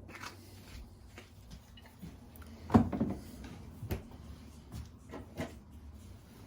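A few knocks and clunks of kitchen things being handled around a cooking pot, the loudest about three seconds in.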